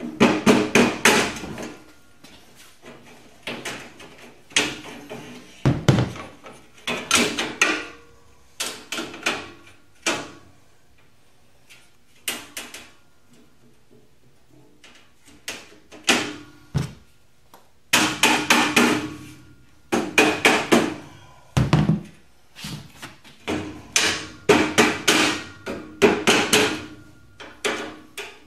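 Rubber mallet knocking the steel beams of a Monster Racks boltless shelving unit down onto the slotted steel posts, seating the beam rivets in their slots. The blows come in quick bursts of several strikes, with a short ring from the steel, and there is a lull with only a couple of blows in the middle.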